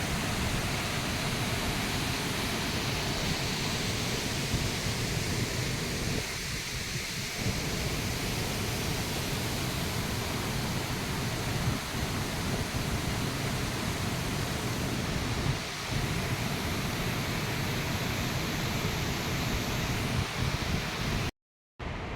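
Waterfall swollen by monsoon rain, a steady heavy rush of falling water that cuts off suddenly near the end.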